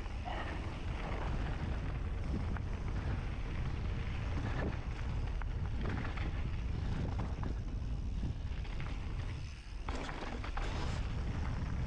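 Wind rushing over the microphone as a mountain bike rolls down a dirt trail, with tyre noise and the bike rattling and knocking over bumps. The rush drops briefly a little before the end, then picks up again.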